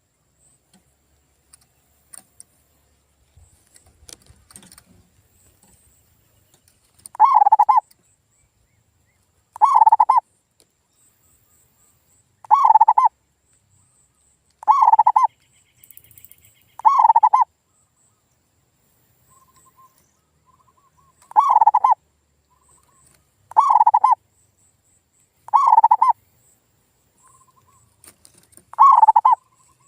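Male zebra dove (perkutut) cooing: about nine loud, evenly spaced notes every two to three seconds, starting about seven seconds in, after a quiet opening with a few faint clicks. Faint high chirps of small birds in the background.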